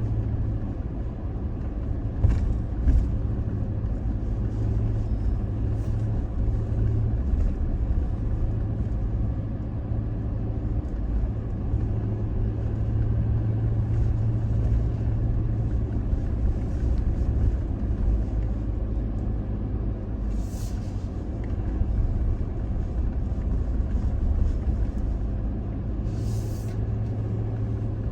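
Toyota Tacoma pickup driving on a dirt road, its engine and tyres giving a steady low rumble. Brief hissing scrapes come a few times, around two seconds in and again near the end.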